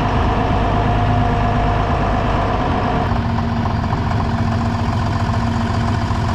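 Tractor engine running steadily, its note shifting lower about three seconds in.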